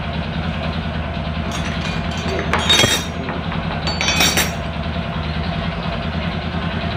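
Honda Supra 125's single-cylinder four-stroke engine idling steadily with a rough mechanical noise, which the mechanic blames on a worn connecting rod and clutch housing. Two short metallic clinks come about two and a half and four seconds in.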